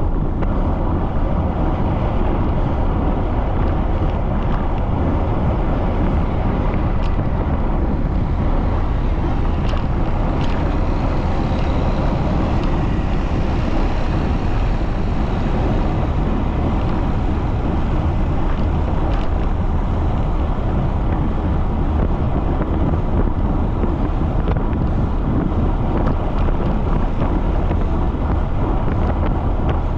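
Steady, loud wind rumble buffeting the microphone of a bicycle riding at speed into strong wind.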